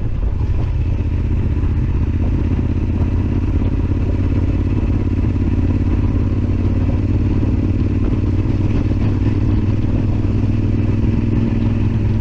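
Yamaha XT1200Z Super Ténéré's parallel-twin engine running steadily under way, at an even pitch with little change in speed.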